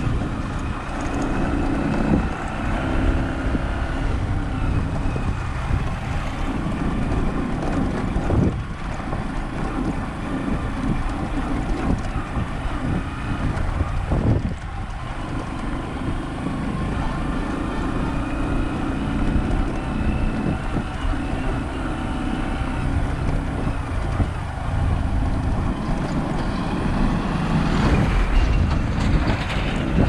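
A vehicle's engine running steadily while driving along a rough dirt road, mixed with tyre and road rumble and some wind on the microphone.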